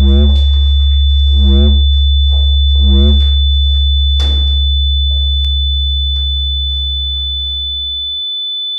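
Electronic soundtrack drone: a loud deep hum under a steady high whine, with a short wavering tone repeating about every second and a half for the first few seconds. A sharp click comes about four seconds in, and the hum fades away near the end.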